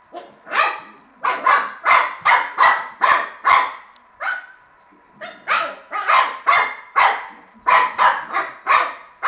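Shar-pei puppy barking repeatedly in quick runs of short barks, about three a second, with a brief pause about four seconds in.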